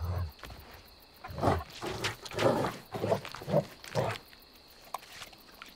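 A creature growling and snarling in a run of short, rough bursts, about six in quick succession from about a second in, after a low thump at the start.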